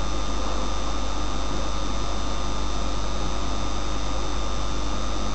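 Steady electrical mains hum and hiss from the recording setup, with a few faint steady high whines; nothing starts or stops.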